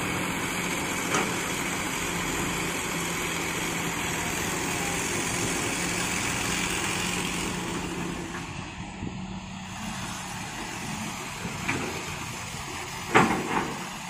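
Hitachi crawler excavator's diesel engine running steadily as it digs and loads soil, easing off a little over halfway through. Near the end there is a sharp, loud thud as the bucket load drops into the steel bed of the dump truck.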